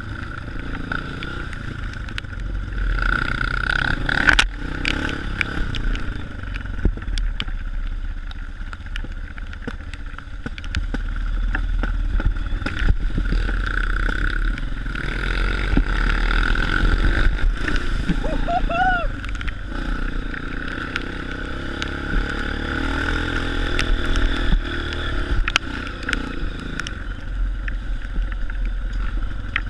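Honda CRF230 dirt bike's single-cylinder four-stroke engine running steadily while riding, with scattered knocks and clatter from the bike over rough ground and a sharp knock about four seconds in.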